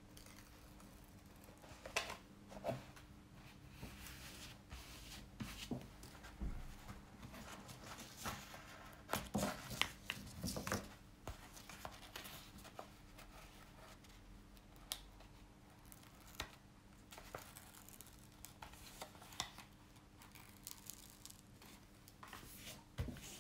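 Crinkling and rustling of a large diamond painting canvas and its protective film as hands flip and smooth it flat, in irregular bursts that are thickest around the middle.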